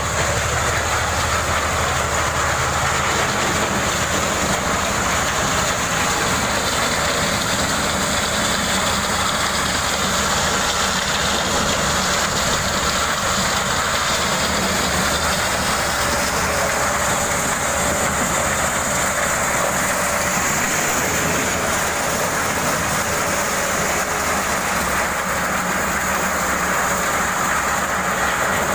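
Engine-driven corn sheller that takes whole unhusked ears, running steadily at work as ears are fed in: a loud, even mechanical din with a low engine hum underneath.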